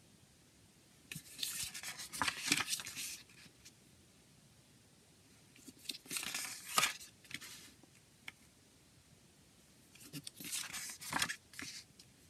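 Pages of a CD booklet being turned and pressed flat by hand: three bursts of paper rustling and rubbing, each a second or two long, a few seconds apart.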